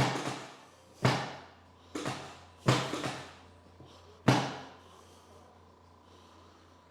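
A series of sharp wooden knocks, each dying away quickly, about one a second with a quick double near two seconds in and the last about four and a half seconds in: the treatment table knocking under chiropractic thrusts to the ribs. A low steady hum runs underneath.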